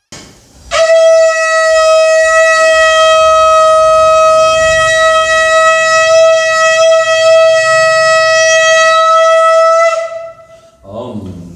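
Conch shell (shankh) blown in one long, steady note, held for about nine seconds before it stops.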